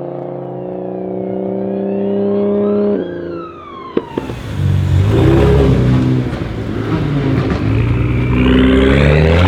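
Straight-piped, Stage 2 tuned BMW 335i turbocharged inline-six holding a steady engine note for about three seconds. The note then drops away with a falling whistle and a sharp pop. After that comes a louder, rough run of revving that rises and falls.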